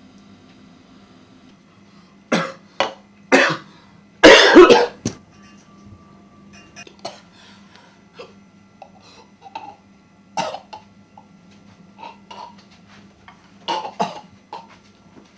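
A man choking and coughing hard. A few sharp coughs come about two seconds in, with the loudest and longest a second or so later, then fainter coughs and choking sounds scattered through the rest.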